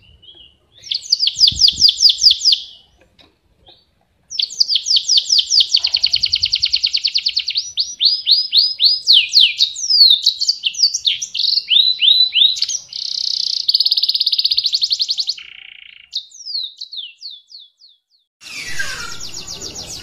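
Caged canary singing: long rolling trills of rapid, repeated down-slurred high notes, in runs of a few seconds with short pauses between. Near the end a second canary's song starts over a noisier background.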